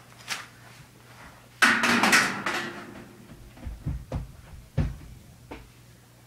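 A sudden loud bang with a clattering ring that lasts about a second, then a few dull thumps a couple of seconds later: an unseen noise in a dark basement.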